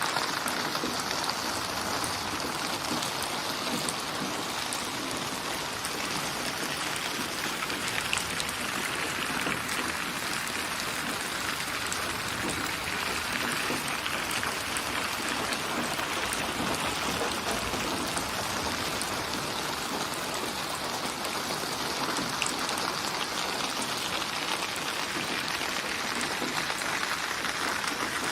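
Steady rain falling, an even hiss with many small drops ticking through it.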